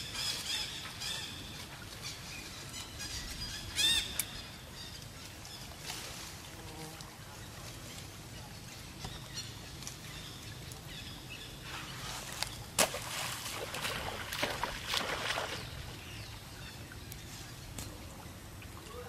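Macaques moving in shallow pond water: outdoor ambience with a short high-pitched call about four seconds in, and a run of sharp splashy noises from about twelve to sixteen seconds in.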